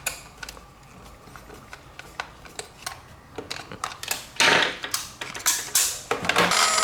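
Hands handling small hard objects at close range: irregular sharp clicks and taps, with a louder scraping rustle about four and a half seconds in and another just under six seconds in.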